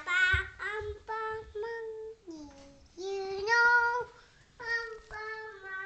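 A toddler singing a run of short held notes that step up and down in pitch, with a longer, louder note about three seconds in.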